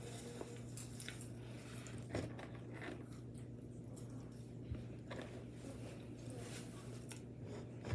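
A person chewing a mouthful of burger topped with hot Cheetos, with scattered soft crunches and squishing over a faint steady low hum.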